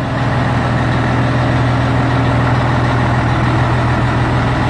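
Scania 113's 11-litre straight-six diesel idling steadily, a low even hum.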